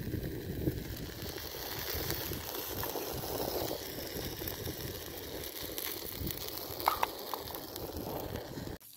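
Wind buffeting the microphone, a rough, uneven rumble, with a short clink or knock about seven seconds in. It cuts off suddenly just before the end.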